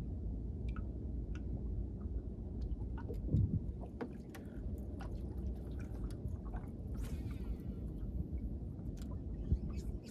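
Water lapping and gurgling against the hull of a bass boat over a steady low rumble, with scattered light clicks, a dull thud about three seconds in and a brief hiss about seven seconds in.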